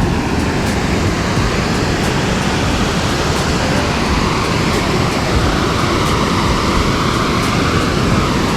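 Water rushing steadily over a dam spillway, a loud continuous roar of noise.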